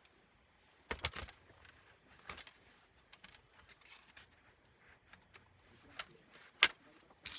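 Scattered sharp clicks and taps from a laptop's parts and tools being handled while it is taken apart: a quick cluster about a second in, another near two and a half seconds, and the loudest single click about six and a half seconds in.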